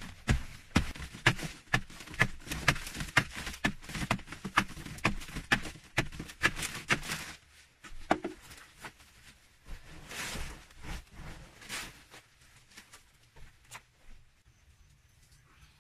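Scraping and digging at a packed earth wall by hand, in quick repeated strokes about three a second. The strokes become sparser and quieter from about seven seconds in.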